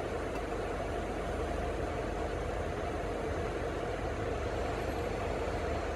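Steady hum and rumble of a car heard from inside its cabin, with no sudden sounds.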